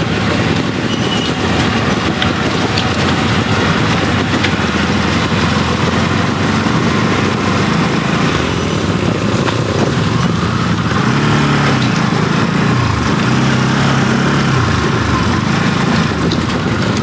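Hero XPulse 200 4V's single-cylinder engine running at low speed on a muddy trail. Its pitch rises and falls several times in the second half as the throttle is worked over the rough ground.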